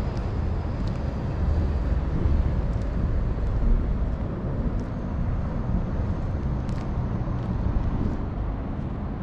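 Steady low outdoor rumble of distant road traffic, with a few faint light ticks over it.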